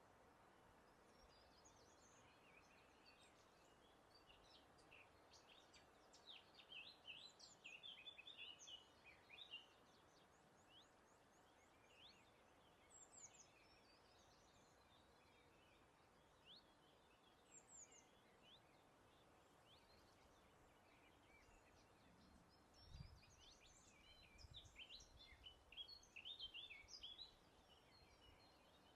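Songbirds singing faintly in two spells of quick, chirping, twittering phrases, with scattered single notes between them, over a steady soft hiss of breeze. A couple of brief low thumps come near the end.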